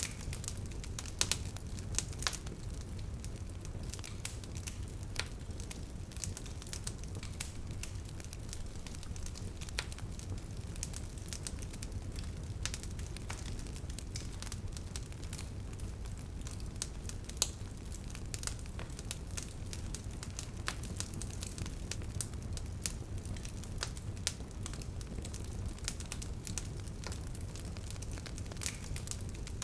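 Wood fire crackling: irregular sharp pops and snaps, a few louder than the rest, over a steady low rumble of burning.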